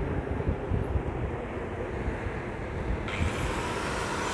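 A steady low rumble from heavy machinery running. About three seconds in, a high whine suddenly starts and rises quickly in pitch, with several steady high tones joining it.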